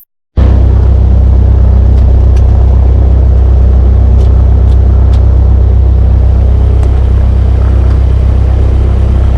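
Cessna 172K's four-cylinder piston engine and propeller heard as a loud, steady low drone that cuts in suddenly a moment in, with a few faint ticks over it.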